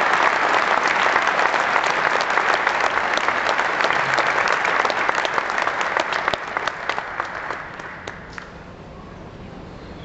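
Theatre audience applauding, a dense wash of many hands clapping with single claps standing out; it tapers off from about seven seconds in and dies away about a second later.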